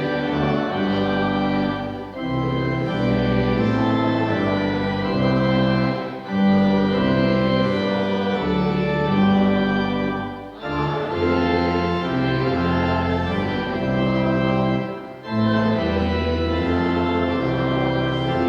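Organ playing slow, sustained chords, with short breaks between phrases about every four seconds.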